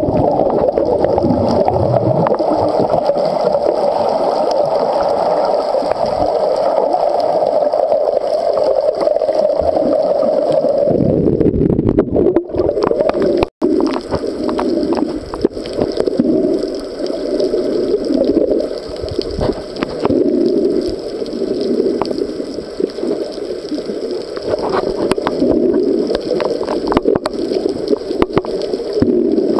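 Muffled water rush and gurgling picked up by a camera underwater while snorkeling. The noise is steady for the first part, drops out for an instant about 13 seconds in, then goes on as a slower, uneven pulsing rush.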